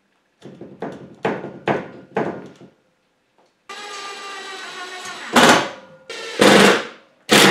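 Cordless drill-driver screwing Unistrut channel to the ceiling joists: a few short knocks in the first couple of seconds, then a steady motor whine that gives way to four short, loud bursts near the end.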